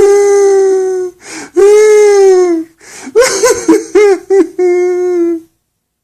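A grown man's voice crying like a baby: long, high-pitched wails that sag in pitch, with short gasping breaths between them. Around three seconds in come choppy broken sobs, then one last wail that stops about five and a half seconds in.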